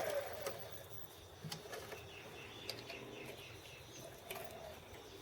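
Small lathe motor spinning down with a falling whine just as it stops. Then come a few light clicks and knocks, over faint bird chirping.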